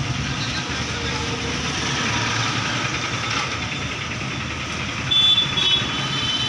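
Steady vehicle engine rumble, with a short, loud high-pitched tone about five seconds in.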